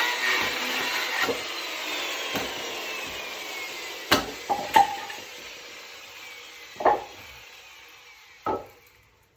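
Chainsaw cutting firewood, its sound fading away, with a faint falling whine and several sharp knocks of wood pieces.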